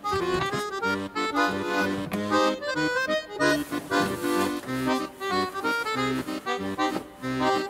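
Background music: an accordion tune over a steady bass-and-chord rhythm.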